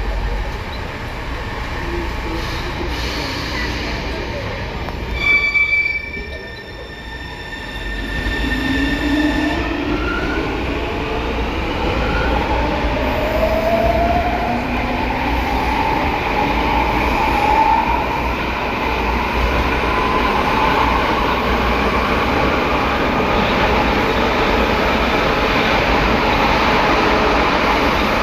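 São Paulo Metro Line 3 train's traction motor, inverter and reduction gearbox, heard from inside the car as it pulls away, the motor and inverter whine rising in pitch as it gathers speed. Under the whine the reduction gearbox has a growl, probably from a lack of lubrication. About five seconds in comes a short burst of high steady tones.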